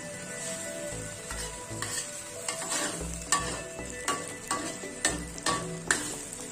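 Food stir-frying in hot oil in a pan, sizzling, with a spatula scraping and knocking against the pan several times in the second half.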